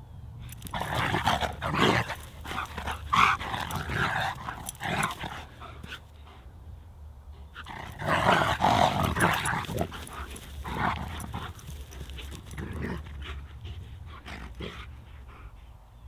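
Two German Shepherds play-fighting, making repeated bursts of vocal sounds. The longest and loudest burst comes about eight to ten seconds in.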